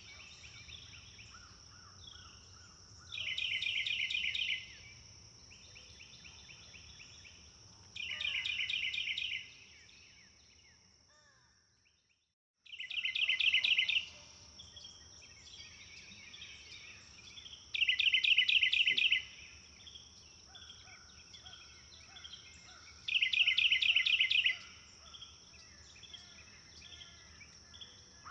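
Jungle ambience: a steady high-pitched insect buzz under repeated loud bird trills, each a rapid run of notes about a second and a half long, coming about every five seconds. The sound fades out a little before halfway and starts again.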